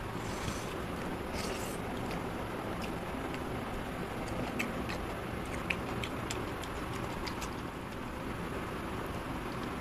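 Eating by hand: chewing and mouth clicks, with fingers scraping rice on a steel plate, heard as scattered short clicks and two brief scrapes near the start over a steady background noise.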